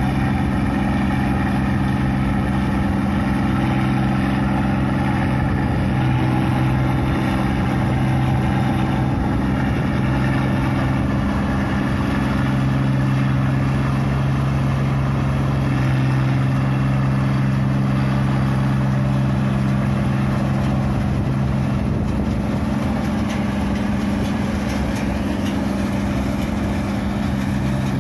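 New Holland 8060 combine harvester running steadily while harvesting rice, its diesel engine giving an even, unbroken drone.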